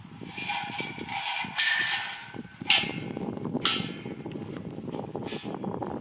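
Sharp metallic clanks, three of them about a second apart, from steel livestock yard panels being bumped. Under them is a busy patter of sheep's hooves and a dog's feet on dirt.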